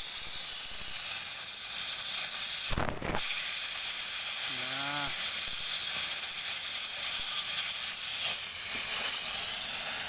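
Oxy-fuel cutting torch hissing steadily as its flame and oxygen jet cut through a rusty steel shaft, with a brief knock about three seconds in.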